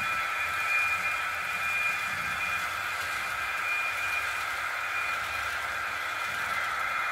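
H0-scale model freight trains running on the layout: a steady high electric-motor whine over the hiss of wheels on track.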